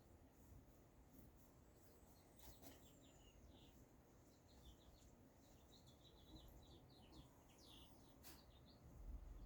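Near silence with faint, high bird chirps in short quick runs, and two faint clicks.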